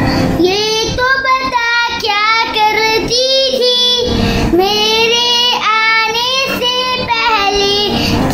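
A young boy singing a naat, an Islamic devotional song, solo in melodic phrases whose pitch glides and bends, with short breaths between phrases.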